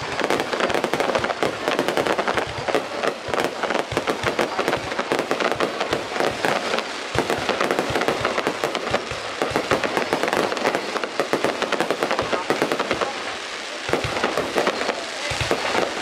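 Fireworks going off in a dense, continuous barrage of rapid bangs and crackles.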